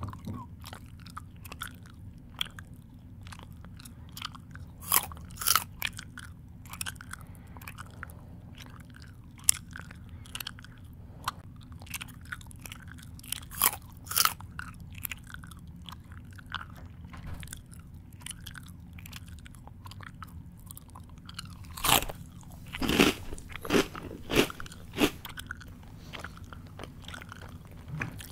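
A person chewing food close to the microphone: irregular crunches and mouth smacks, with louder clusters about five seconds in, around thirteen seconds, and a run of several between twenty-two and twenty-five seconds, over a low steady hum.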